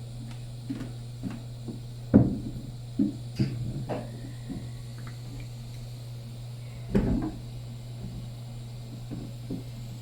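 Scattered light knocks and clatter of small objects being handled and set down on a hard surface, loudest about two seconds in and again about seven seconds in, over a steady low hum.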